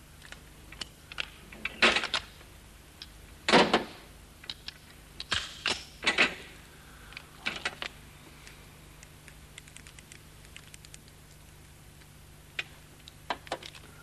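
Metal clicks and clacks of revolvers being handled and worked: cylinders turning, hammers and actions clicking, parts knocking together. The loudest clacks come about two seconds in and around three and a half seconds in, followed by a cluster of clicks and then scattered light ticks.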